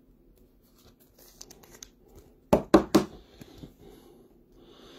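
Clear hard plastic 55-point card holder being handled and snapped shut around a card: faint rustling, then three sharp clicks in quick succession a little past halfway.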